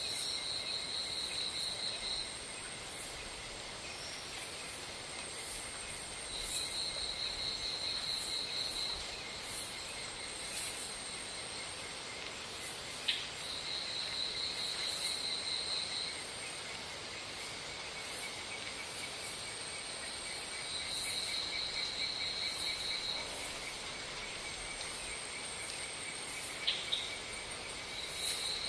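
Insects calling in a steady chorus: a continuous high, pulsing drone with a louder high-pitched trill of about two seconds that comes back every six or seven seconds. Two short sharp clicks stand out, about halfway through and near the end.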